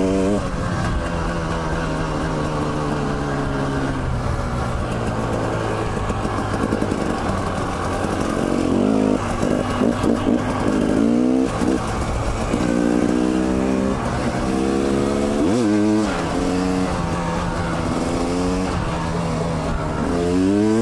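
Dirt bike engine running under way, its revs rising and falling as the rider works the throttle and gears, with a few sharp rises in revs in the second half.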